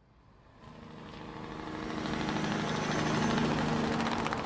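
Six-wheeled Ural army truck approaching and driving past: a steady engine hum with tyre noise swelling over the first three seconds, then staying loud.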